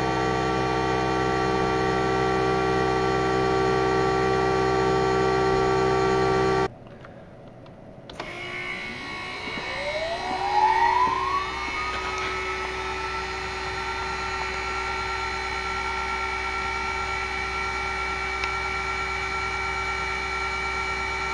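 Old CNC machine's coolant pump and water-cooled spindle running, heard close to the pump: a steady, loud hum with several steady tones in it. It cuts off suddenly about a third of the way in. Then the machine starts again: the VFD-driven spindle whines up in pitch over a few seconds and settles into a steady, quieter whine and hum, the pump's noise cut by its reworked mounting.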